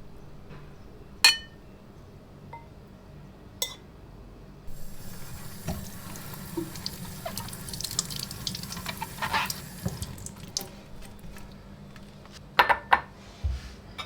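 Water running from a tap into a sink, with sharp clinks of dishes now and then. The flow gets fuller about five seconds in, and a quick run of clinks comes near the end.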